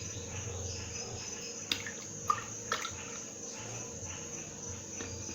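Crickets chirping steadily over a low hum, with a few light clicks about two seconds in.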